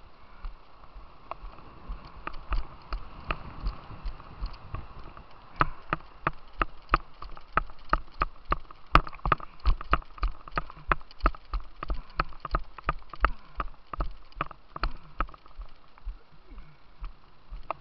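Footsteps on a hard path, a steady walking rhythm of about two to three steps a second that is strongest through the middle, over the steady rush of white water.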